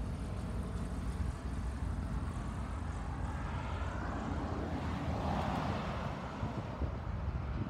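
Small single-engine propeller plane flying low overhead, its engine growing louder to a peak a little past the middle of the passage and then fading as it moves away.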